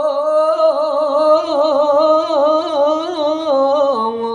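A man singing a Yogyakarta-style suluk, the wayang puppeteer's mood song, unaccompanied. He holds one long ornamented note with a wavering pitch, then drops lower near the end.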